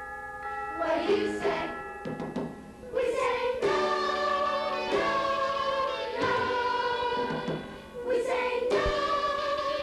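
Youth choir singing, several voices together holding long notes, with short breaks between phrases.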